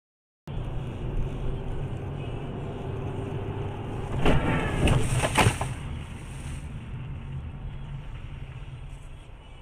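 A car's steady low road and engine rumble, heard from inside the cabin, starting abruptly about half a second in. About four seconds in, a loud noisy burst with two sharp knocks about a second apart stands out, then the rumble slowly fades.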